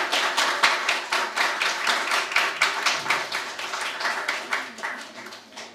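Audience applause: many hands clapping in quick, irregular strokes, dying away near the end.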